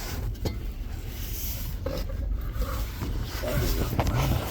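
Rubbing and scraping of a person moving about in a crawl space, over a steady low rumble, with a few small knocks.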